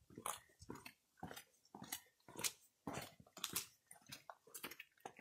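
Footsteps crunching on a gritty sand path, about two steps a second at a walking pace, faint.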